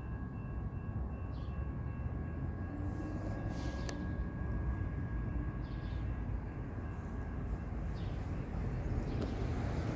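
Low, steady rumble of a distant CSX freight train approaching slowly, out of sight. A faint, steady high ringing is heard over it and stops about three-quarters of the way through.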